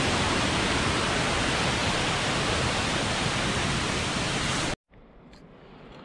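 A tall waterfall pouring down a rock face, a steady, dense rush of falling water. It cuts off suddenly about five seconds in, leaving a much quieter forest with a few faint ticks.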